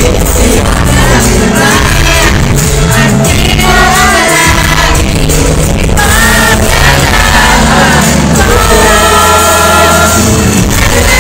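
Live pop music at an arena concert: a singer's voice over a full band or backing track, played loudly through the stage sound system and heard from the audience.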